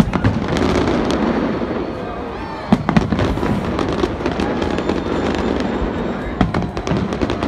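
Fireworks display going off: a continuous rumble of bursting shells with crackling and repeated sharp bangs, the loudest about three seconds in and several more near the end.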